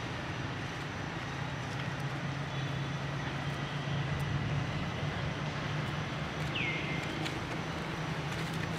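Steady low mechanical hum over outdoor background noise, like a motor running nearby. A single short, high, falling chirp comes about six and a half seconds in.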